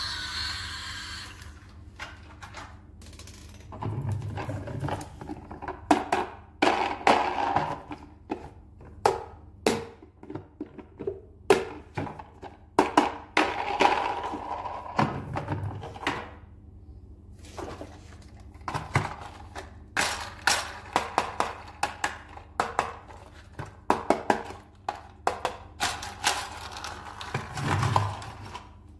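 Hard plastic toys (a Thomas the Tank Engine train and a toy dump truck) being handled and set down on a table: irregular clicks, knocks and clatters, with a few short low rumbles.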